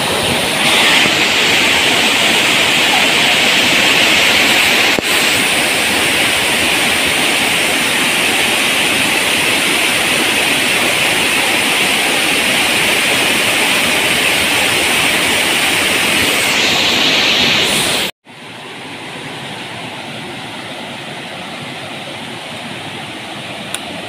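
Waterfall cascading over rocks: a loud, steady rush of water. About 18 seconds in it cuts off abruptly and is replaced by a quieter, more distant rush of falls.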